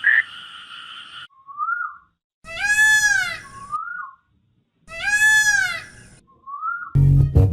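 Animal calls in a repeated pattern: a short rising-and-falling call, then a longer, louder arched call, three times over. Music comes in near the end.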